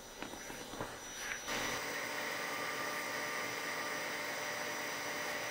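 3D printer's extruder motor and hot-end fan running steadily as filament is purged from the nozzle: a hum and hiss with faint level whining tones that starts about one and a half seconds in, after a few soft clicks.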